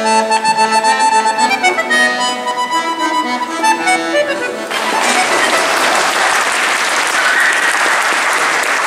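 Accordion playing the last phrases of a tune, its held notes changing in steps; about five seconds in the music stops and an audience breaks into applause, which carries on steadily.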